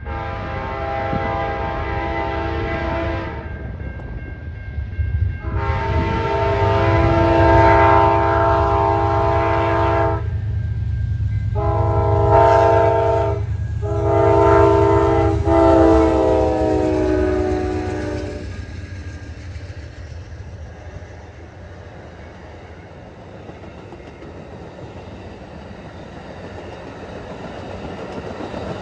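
Amtrak P42DC diesel locomotives blow a multi-note air horn in the long-long-short-long grade-crossing pattern over the rumble of their diesel engines; the last blast drops slightly in pitch as it passes. The passenger cars then roll by more quietly with a clickety-clack of wheels over rail joints.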